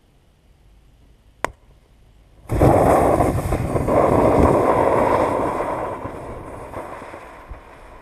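A sharp crack, then about a second later a sudden loud rushing hiss as the bullet-struck HP laptop's battery vents and bursts into flame; the hiss fades away over the next few seconds.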